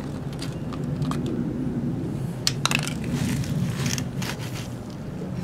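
Oil fill cap being unscrewed and pulled from a generator's crankcase: a few small clicks and scrapes around the middle. A steady low hum runs underneath.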